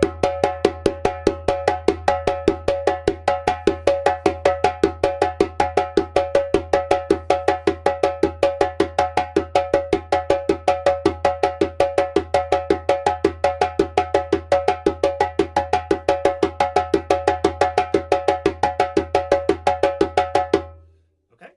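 Djembe played by hand in a fast, even run of the 'tone slap slap' exercise: one open tone followed by two sharp slaps, repeated over and over. The strokes come about five or six a second and stop about a second before the end.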